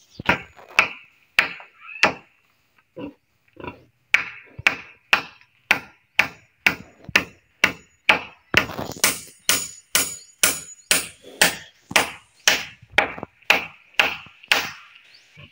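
Hammer blows on wood: a few strikes, a short pause with lighter taps, then a steady run of about two blows a second that stops shortly before the end.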